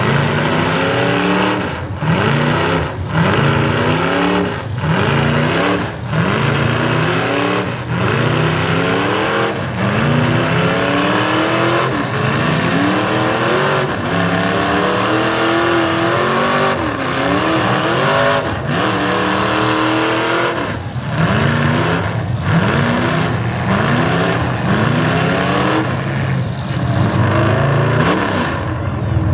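Several demolition derby trucks' engines revving hard over and over, the pitch climbing and dropping every second or two, over a steady noisy din.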